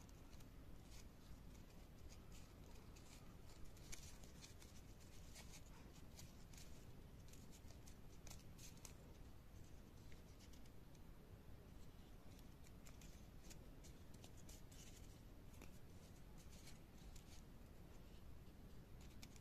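Faint, scattered crinkling and rustling of folded origami paper as fingers fit the brown paper units together, over a low steady background hum.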